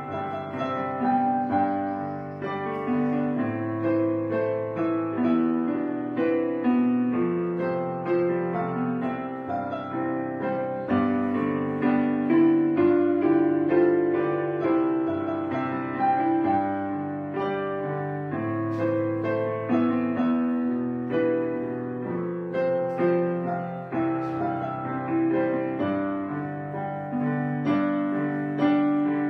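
Background piano music: a steady run of sustained notes with no speech over it.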